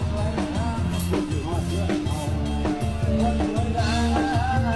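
Amplified procession music played loud from a Thai sound truck's loudspeaker stacks: a steady, bass-heavy drum beat with a singing voice over it.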